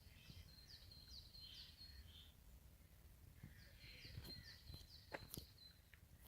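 A songbird singing faintly: two phrases of quick, repeated high notes, each note sweeping down, with a pause between the phrases.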